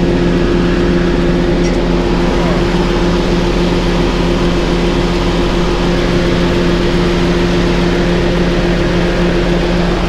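Steiger tractor's diesel engine running steadily at idle, a constant hum with two held tones, heard up close beside the engine bay and cooler stack.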